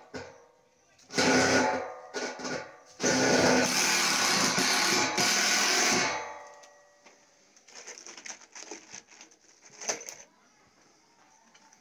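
A handheld electric power tool running in two bursts: a short one about a second in, then a longer one of about three seconds that winds down when released. Faint knocks and scraping follow, with one sharper knock near the end.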